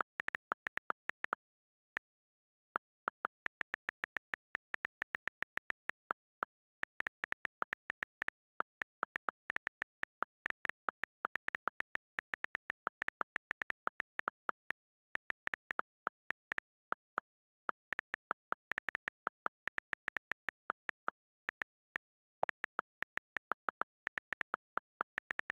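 Rapid, uneven typing clicks, a few taps a second, as a message is keyed in, with dead silence between the taps and a short pause about two seconds in.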